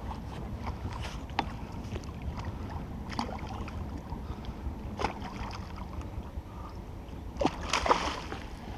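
Small hooked carp splashing at the surface with scattered small splashes and knocks, then a louder flurry of splashing near the end as it is drawn into the landing net, over a steady low rumble of wind and water.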